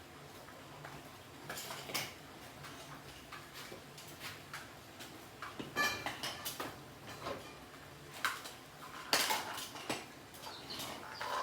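Tools and metal parts clinking and knocking as they are handled, in a few irregular clusters, one or two with a short metallic ring.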